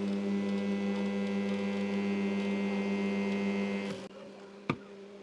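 Microwave-oven-transformer spot welder humming steadily under load as it welds bicycle spoke wire, a deep mains buzz that stops about four seconds in. A sharp click follows shortly after.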